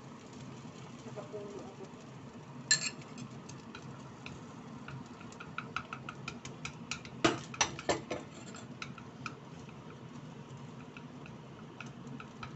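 Wooden chopsticks stirring egg in a non-stick frying pan: a run of light taps and scrapes against the pan, loudest a little past halfway. A single sharp clink comes just under 3 seconds in. A low steady hum runs beneath.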